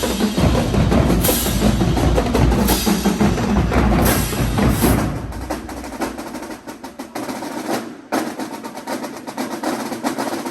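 Marching band drumline playing, with heavy low bass under the drums for about the first five seconds. After that the bass drops out, leaving lighter, rapid snare and stick hits.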